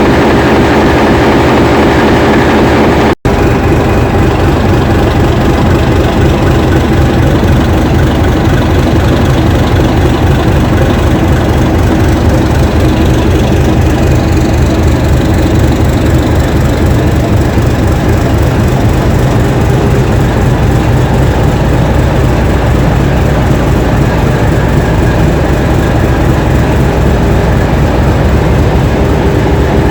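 English Electric diesel locomotive engine running loud and steady. About three seconds in the sound cuts out for an instant and resumes with a heavier, lower engine note.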